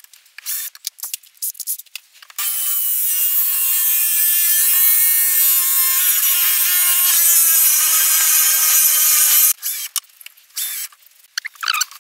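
Drill boring a 35 mm hinge-cup hole into an MDF cabinet door with a Forstner-type hinge bit, running steadily for about seven seconds and dropping in pitch about two-thirds of the way through before stopping. A few light clicks and taps of handling come before and after.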